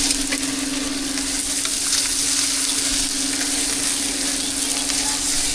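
Food frying with a steady sizzle, and a steady hum underneath.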